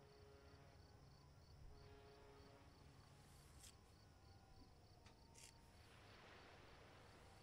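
Near silence: faint night ambience with a cricket chirping steadily, about four high chirps a second, and a couple of soft ticks about halfway through.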